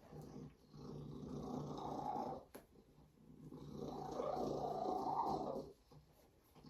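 Savannah cat purring close up, a steady rumble that swells twice in long waves. A single short click about two and a half seconds in.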